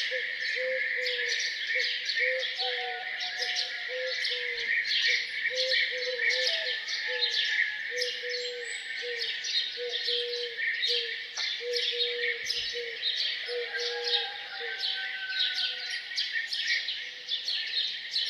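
A chorus of songbirds chirping and singing continuously, with a low, short cooing note repeated over and over, a little more than once a second, beneath the chirps.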